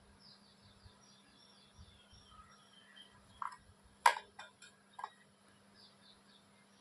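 Faint bird chirping in short repeated calls over a low steady hum, with a few sharp clicks or knocks in the middle, the loudest about four seconds in.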